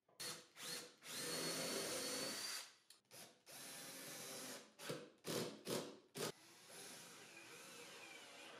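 Milwaukee cordless drill spinning a small bit into the cherry cabinet frame, its motor whining in stop-start pulls of the trigger: two quick bursts, a long run of about a second and a half, then a shorter run, several brief blips, and a quieter steady run near the end.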